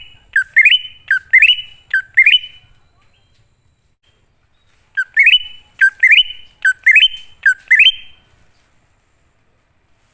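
Green leafbird (cucak ijo) song: two runs of loud, rising whistled notes, about two a second, with a pause of nearly three seconds between the runs.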